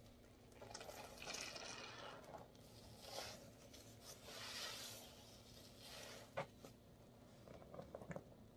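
Faint, wet squelching and crackling suds as a foam sponge loaded with Gain detergent paste is squeezed and worked in a tub of soapy water, coming in several swells. A few sharp little clicks follow near the end.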